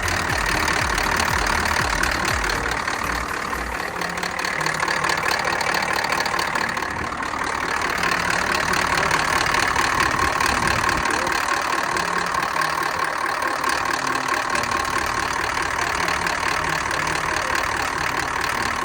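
Diesel truck engine idling steadily with a knocking clatter.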